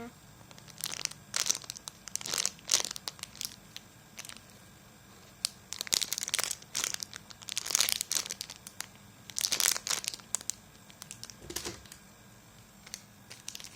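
Plastic crinkling and rustling in irregular short bursts as squishy toys are picked up and handled.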